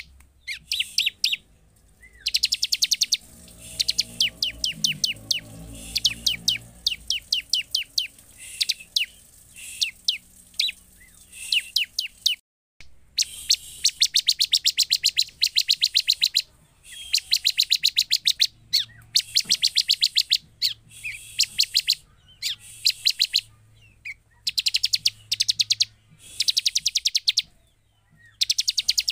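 Bar-winged prinia (ciblek) calling in rapid runs of sharp, high chipping notes, each run lasting a second or two with short pauses between. This is the excited call used as a lure to rouse a silent ciblek into answering.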